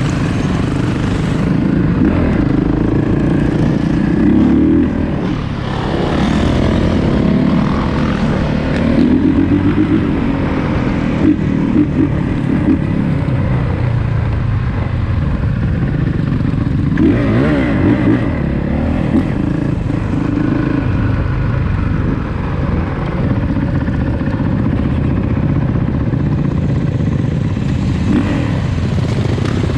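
2021 Honda CRF450's single-cylinder four-stroke engine running, the revs rising and falling with the throttle several times.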